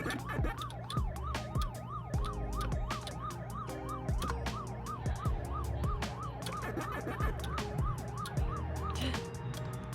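Music with regular drum hits and a changing bass line, over which a siren-like tone sweeps rapidly up and down, about three times a second.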